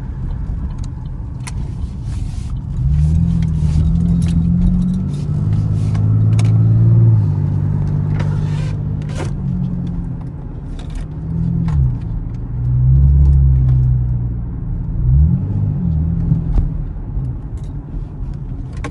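Camaro's engine pulling through the gears, its low note rising and falling several times as the throttle is opened and eased off.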